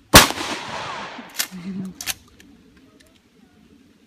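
Shotgun fired once, the blast echoing for about a second, followed by two sharp clacks about a second later.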